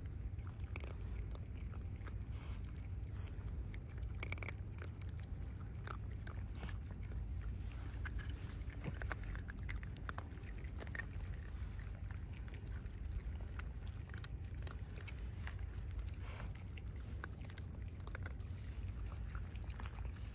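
Several raccoon dogs chewing and crunching dry food pellets picked off the ground: many small, irregular crunches and clicks over a steady low rumble.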